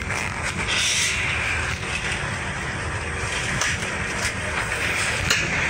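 Steady noise inside a fast passenger boat's cabin as it runs through rough seas of about two-metre waves: engine drone and water rushing against the hull, with a few sharp knocks and rattles.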